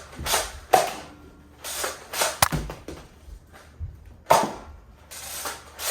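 Foam-dart Nerf blasters firing indoors: a string of short, airy puffs, about eight in all, with a sharp click about two and a half seconds in.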